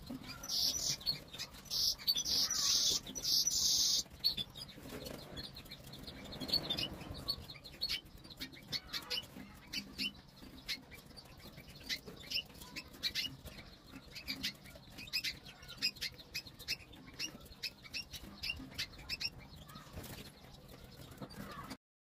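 Caged canary chirping loudly and rapidly for the first few seconds, then quieter, with many short sharp clicks and brief high chirps as birds move about the cage.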